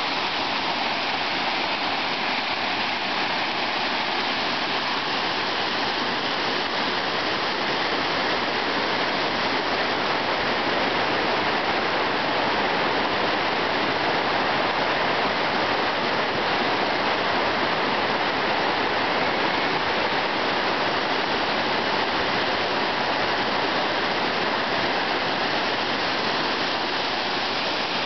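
Waterfall and shallow river water cascading over rock ledges: a steady, even rush of falling water.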